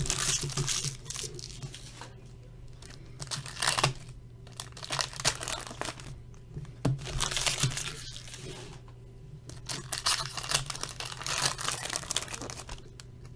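Plastic wrapping and cardboard being torn and crinkled in irregular bursts as sealed hockey trading-card boxes and packs are opened by hand.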